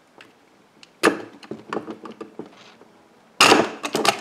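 Small screwdriver clicking and scraping against the receiver of a Mossberg 500 shotgun as it pushes the trigger-group pin out. There is a sharp click about a second in, lighter clicks after it, and a louder scraping rush about three and a half seconds in.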